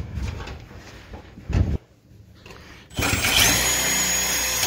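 A thump a little over a second in, then about three seconds in a cordless drill starts up and runs steadily under load, its bit boring into a circular storage-unit lock with a high steady whine over grinding noise.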